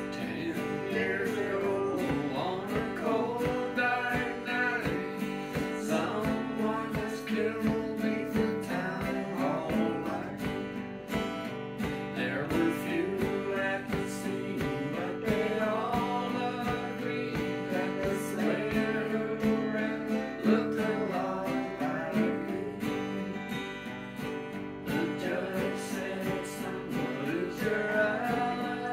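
Acoustic guitar and ukulele strummed together, accompanying a small group of people singing along.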